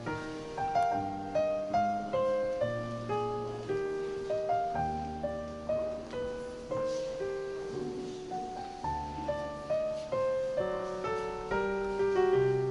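Background music: a piano playing a gentle melody of single notes over low bass notes.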